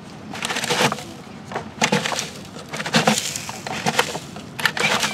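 Sand scraping and crunching inside a Tonka toy cement mixer's drum as it is turned to mix, in gritty bursts about once a second.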